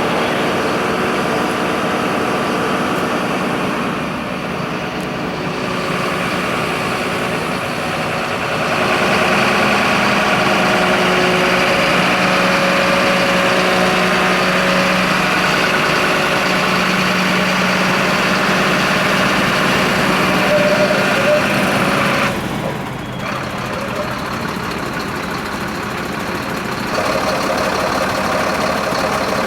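Heavy fire-engine motors running steadily, with a short change in the sound about three quarters of the way through.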